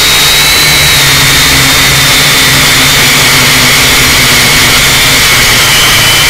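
Syma X5UC quadcopter's small brushed motors and propellers whining steadily in flight, loud and close as picked up by the camera strapped to its body, over a hiss of rushing air. The whine sags a little in pitch near the end.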